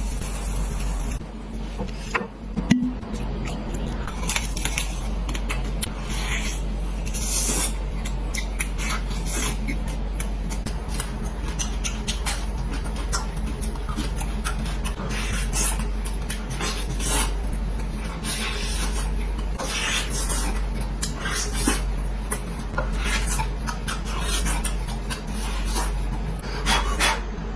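Repeated irregular scraping and rubbing strokes, with one sharp knock about three seconds in, over a steady low hum.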